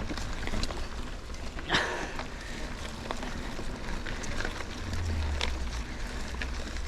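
Movement along a dirt forest single-track: scattered clicks and crunches, with a louder scrape about two seconds in, over a low rumble of wind on the microphone.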